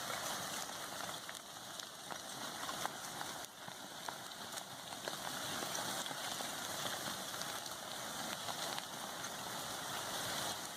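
Advancing lava flow burning through trees and brush: a steady hiss with scattered faint crackles and pops.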